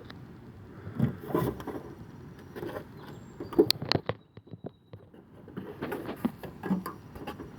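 Scattered light clicks, knocks and small rattles of hands handling parts inside an opened car tailgate, with the sharpest knocks about halfway through.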